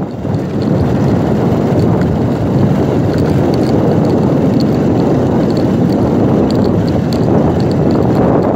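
Wind buffeting a phone's microphone: a loud, steady, low rushing rumble with no break.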